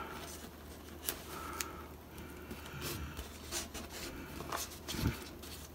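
Faint rustling and a few light ticks of hands pressing servo wires and masking tape down into the wire channel of a foam model-airplane wing, over a faint steady hum.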